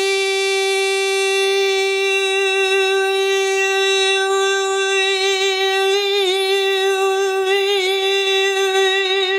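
A naat reciter's voice holding one long sung note, strong and steady, that wavers into ornaments about six seconds in and again near the end.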